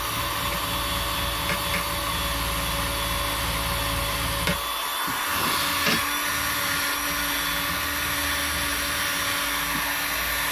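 Power-driven cloth buffing wheel running steadily, buffing polishing compound into buffalo-horn bow nocks. Its low hum dips briefly about four and a half seconds in, with two faint knocks around then and a second later.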